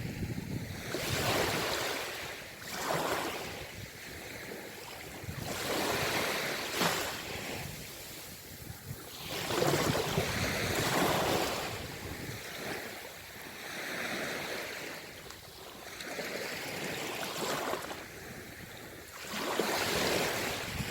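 Ocean waves breaking and washing up the shore, the surf swelling and falling away in surges every three to four seconds.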